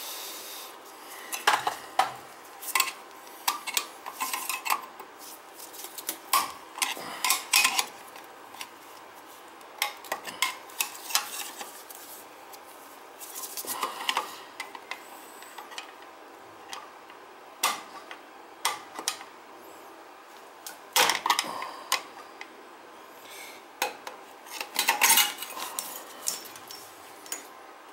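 Gloved hands handling metal parts at a burner's steel junction box and armored cable: scattered, irregular clinks, clicks and rattles that come in clusters.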